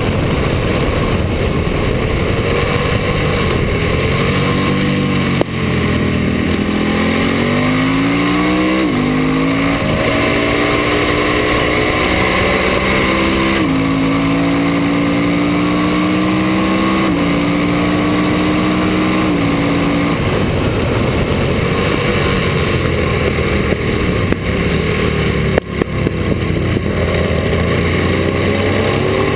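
Ducati racing motorcycle engine under hard throttle, heard on board: the note climbs through the gears with a shift about nine seconds in, holds steady at high revs for several seconds, then wavers and briefly cuts back with throttle chops near the end, over constant wind rush.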